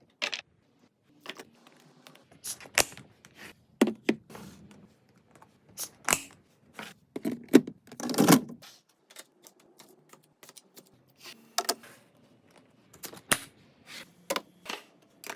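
Containers, packs and bottles being handled and set into a refrigerator during restocking: irregular clicks, taps and light knocks of plastic and glass on shelves, a few with a duller thud, with short quiet gaps between.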